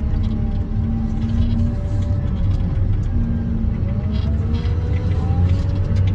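Wheel loader's diesel engine running under load, heard from inside the cab as a steady deep rumble, with a whine that rises and falls in pitch as the machine works and a few light clanks and rattles.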